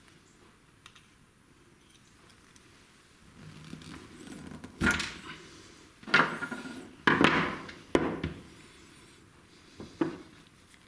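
Metal hand tools (pliers and a screwdriver) knocking and scraping on a wooden workbench: quiet at first, then about half a dozen sharp knocks and scrapes over the second half as the old starter cord's metal crimp is worked.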